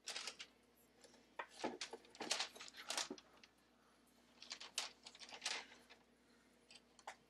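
Small objects being handled on a work desk: three bursts of quick clicks and rustles, the first right at the start, the next about one and a half to three seconds in, the last about four and a half to five and a half seconds in.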